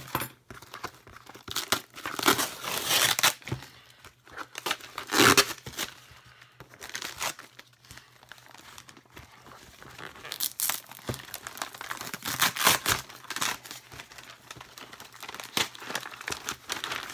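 Paper wrapping being torn and crumpled off a parcel in a string of irregular rips, the loudest about two, five and twelve seconds in.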